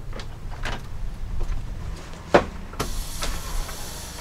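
Metal clicks and clacks as an AC line's spring-lock coupling is worked apart with a line separator tool, one sharp clack just past halfway being the loudest. Just after it a faint hiss sets in: residual refrigerant escaping from the opened line.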